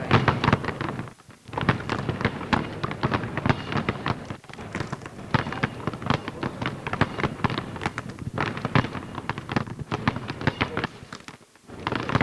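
Many basketballs being dribbled at once on a hardwood court: a dense, irregular patter of bounces, with a short lull about a second in and another near the end.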